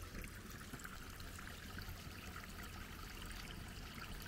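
Rainwater runoff trickling steadily along a shallow earth channel.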